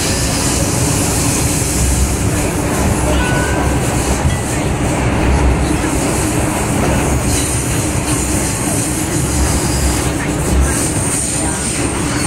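MTR Tsuen Wan Line M-Train heard from inside a passenger car while running through the tunnel. A steady rumble of wheels on rail comes with a high rushing hiss.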